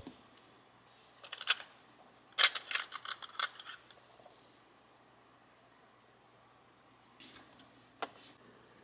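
Small metal earrings and charms clinking and rattling in a clear plastic compartment organizer as fingers pick through them: a single click, then a quick flurry of light clicks and jingles, a quiet spell, and two more clicks near the end.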